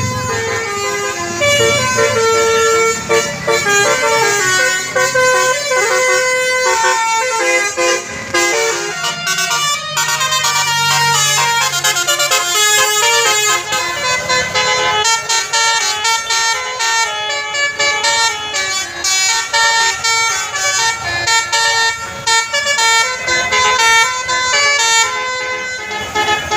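Bus basuri air horn playing telolet melodies: a long run of loud stepped horn notes, each held briefly, changing pitch several times a second.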